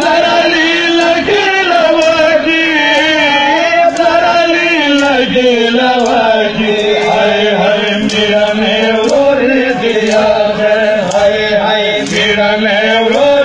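Men chanting a Shia mourning lament (nauha), with regular hand slaps of chest-beating (matam) keeping time.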